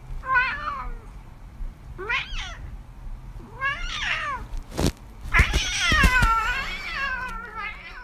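Ginger cat meowing four times, the first three calls short and the last one long and wavering in pitch. A single knock comes just before the last call.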